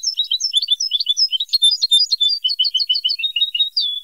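Recorded European goldfinch song from a tutoring tape made to teach captive goldfinches to sing: a fast, twittering run of varied high notes. Near the end comes a quick series of repeated notes, and the song stops suddenly on a longer note.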